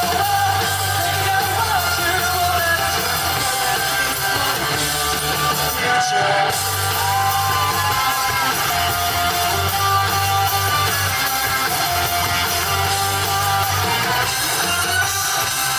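Live rock band playing with a singer's held, sustained vocal lines over guitar and bass.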